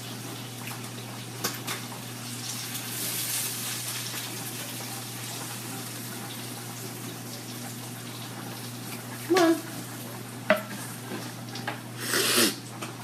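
Kitchen background: a steady low hum under a soft hiss, with a few light clicks of utensils. A short voice-like sound comes about nine seconds in, and a louder rush of noise near the end.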